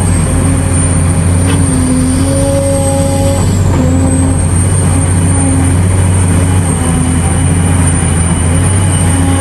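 Caterpillar 374D hydraulic excavator running under load while digging, with a steady loud diesel drone and a hydraulic whine that steps up and down in pitch as the boom and bucket move.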